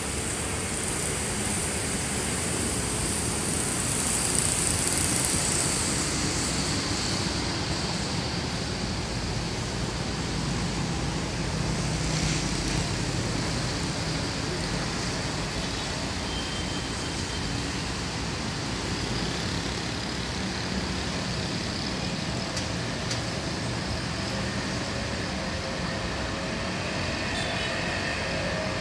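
Steady road traffic of cars, motorcycles and buses, a continuous wash of engine and tyre noise that swells briefly about five seconds in.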